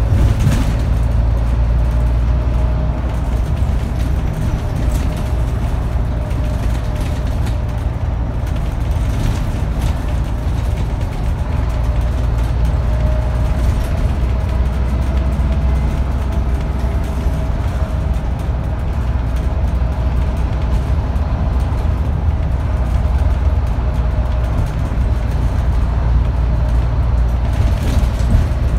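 Scania N230UD double-decker bus with its Scania DC9 diesel engine, heard from inside the passenger cabin while under way: a steady low drone with a faint whine that wavers slightly in pitch. A few short knocks or rattles come through, one just after the start, one about ten seconds in and one near the end.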